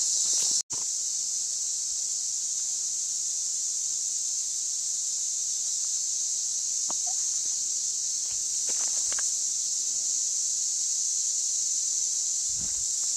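Steady high-pitched insect chorus of summer woods, a continuous shrill hiss, with a few faint footsteps on a gravel path. The sound cuts out for an instant just under a second in.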